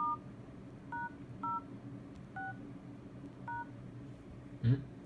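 LG K4 (K120) phone keypad sounding five short two-tone dialing beeps as the IMEI code *#06# is typed in to show the IMEI. A brief voice sound comes near the end over a steady low hum.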